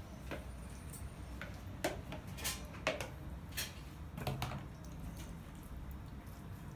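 Irregular light taps, clicks and soft squishes of pizza dough being pressed out by hand on a baking tray, over a low steady hum.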